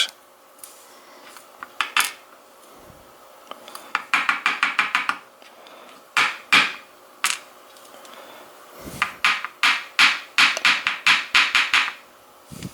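Small metal lock pins and parts of a gutted Mul-T-Lock cylinder clinking and tapping against metal in runs of quick taps, with a long rapid series near the end.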